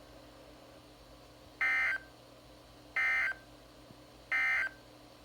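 NOAA Weather Radio's end-of-message signal: three short buzzy data bursts about a second and a half apart. These mark the end of the severe thunderstorm watch broadcast.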